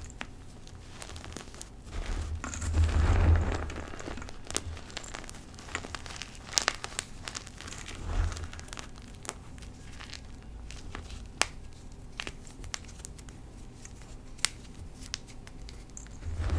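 Hands crushing and squeezing loose powdered Colift gym chalk in a bowl: soft crunching with many sharp little crackles. Heavier squeezes come about two to three seconds in and again around eight seconds.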